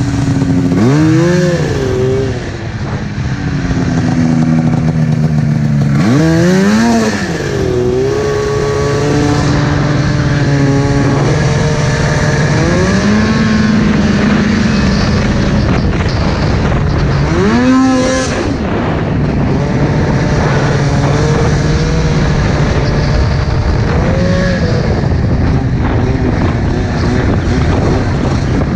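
Arctic Cat F7 snowmobile's two-stroke engine, with a D&D pipe and Jaws can, running under throttle while riding. It revs up sharply and drops back about a second in, again around six to seven seconds and near eighteen seconds, and holds a steadier pitch in between.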